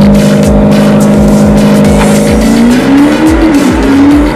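Electronic music with a steady kick-drum beat under a sustained synth tone that bends upward and wavers about two and a half seconds in.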